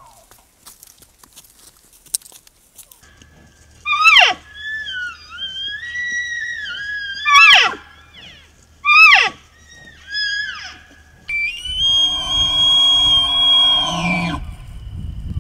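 Bull elk bugling: starting about four seconds in, several high, whistling calls that slide down sharply at their ends, then near the end a longer held high whistle with a rough growl beneath it.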